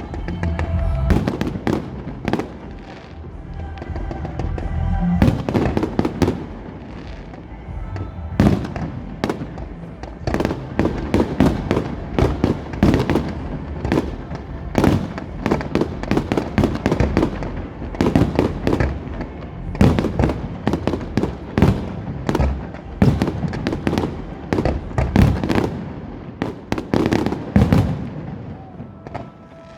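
Fireworks display going off: a dense run of sharp bangs and cracks from bursting aerial shells, coming thick and fast for most of the stretch, with a few short lulls.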